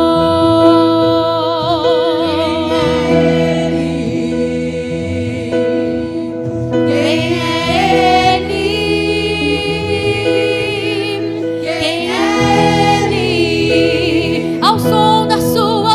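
A women's vocal group singing a slow gospel praise song in Portuguese over sustained instrumental chords, the voices wavering with vibrato in phrases that rise and fade.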